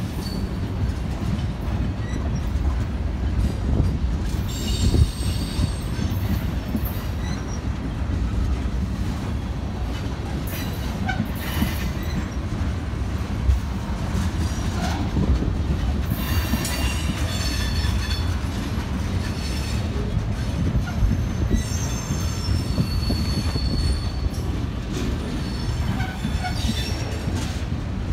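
Freight train tank cars rolling past at close range: a steady rumble and clatter of steel wheels on the rails, broken by several spells of high-pitched wheel squeal.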